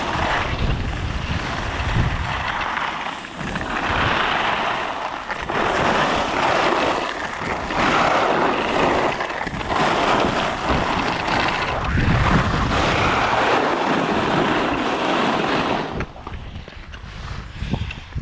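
Skis scraping and carving on packed, groomed snow with wind rushing over the microphone, swelling and fading with each turn. The rushing drops off about sixteen seconds in.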